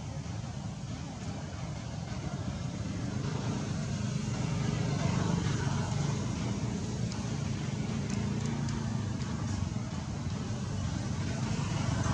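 A steady, low engine rumble, like a motor vehicle running nearby, growing a little louder about four seconds in.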